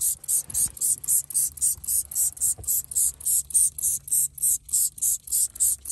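Tire shine sprayed from a trigger spray bottle with rapid repeated squeezes, a quick run of short hissing spurts about four a second.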